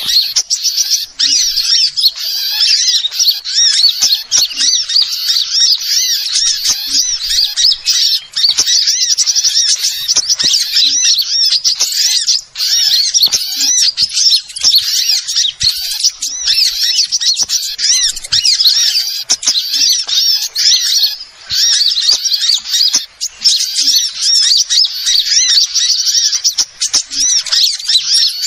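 A busy, unbroken chorus of small birds chirping rapidly and shrilly, many high notes overlapping with only two brief pauses. It is a lure recording (pikat) made to draw small birds such as sunbirds.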